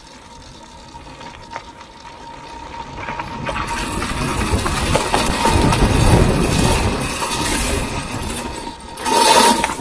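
Electric enduro motorcycle riding off asphalt onto loose gravel and dirt: tyre crunching and stones and dust spraying, growing louder from about three seconds in, with a short louder rush near the end. A thin steady whine sits underneath.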